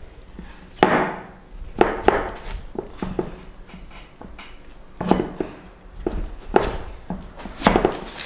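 A large kitchen knife forced down through a giant jicama on a wooden cutting board: a series of irregular heavy knocks as the blade and the root strike the board. The tough root takes a lot of force to split.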